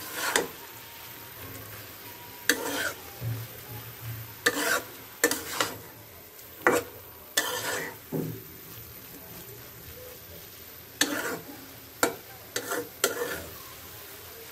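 A metal spatula scrapes and turns water spinach (kolmi shak) in a black iron kadai, in about a dozen separate, irregular strokes. A quiet sizzle of frying runs between them.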